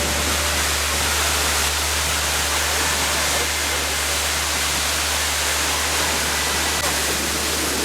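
Waterfall: a steady, unbroken rush of falling water with a constant low hum beneath it.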